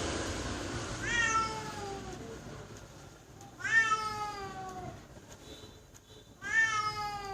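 Domestic cat meowing three times, a few seconds apart; each meow is a long call that falls in pitch.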